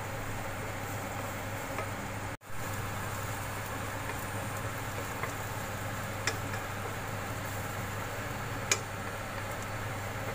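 Minced garlic sizzling steadily in melted butter in a nonstick pan as it fries toward fragrant, stirred with a wooden spatula. There are a couple of short clicks of the spatula against the pan in the second half, and the sound cuts out for a moment about two seconds in.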